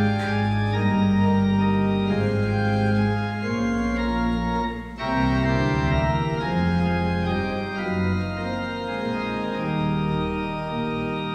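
Church organ playing the introduction to a hymn in sustained chords, with a short break about halfway through.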